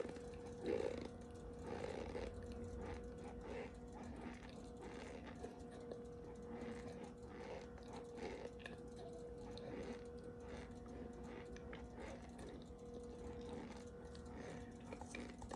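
Close-up mouth sounds of someone chewing a mouthful of cornstarch: soft, irregular crunching clicks, a little louder about a second in, over a faint steady hum.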